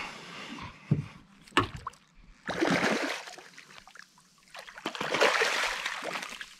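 A hooked flathead thrashing and splashing at the water's surface beside the boat, in two bursts, the second and longer one starting about four and a half seconds in as the fish is netted. A couple of sharp knocks come before the splashing.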